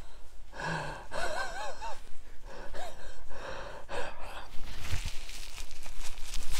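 A man gasping and breathing hard from the heat of spicy hot chicken ramen, with a short wavering voiced sound about a second in. Near the end a paper napkin rustles against his face as he wipes his mouth and nose.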